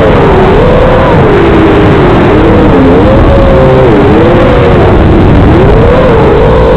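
FPV quadcopter's electric motors whining, their pitch rising and falling with throttle changes, heard through a hissy analog FPV radio link.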